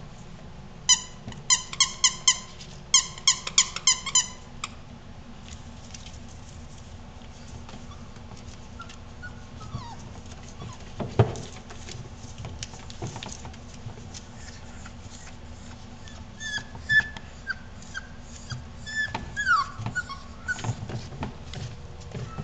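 Bullmastiff puppies about five weeks old squeaking and whimpering. A quick run of short, high squeaks comes in the first few seconds, then a single thump about halfway. Scattered high whines follow in the last several seconds, some falling in pitch.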